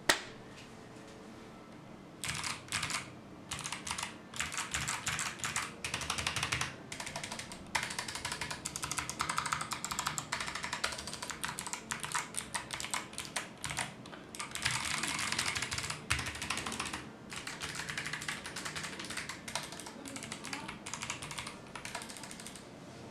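Typing on a Hyeku GK707 mechanical keyboard with Kailh Box White clicky switches: fast runs of crisp keystroke clicks that come in bursts with short pauses, starting about two seconds in after a single key click.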